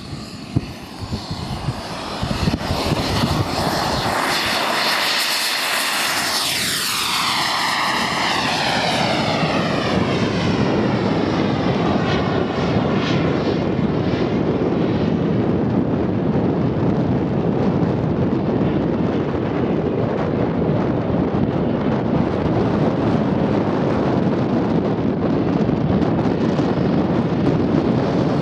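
Engines of a Skymaster A-10 radio-controlled model jet. They whine at full power on the takeoff run, and the pitch drops sharply as the model passes about six or seven seconds in. After that comes a steady engine noise as it climbs away and flies overhead.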